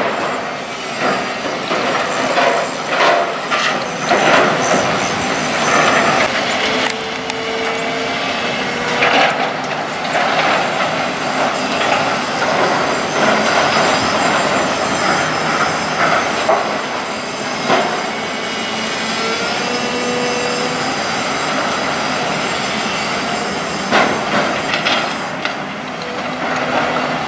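Demolition by hydraulic excavators: a steady clatter of crashing and scraping metal and building debris over the excavators running, with many sharp knocks and a couple of brief metallic squeals.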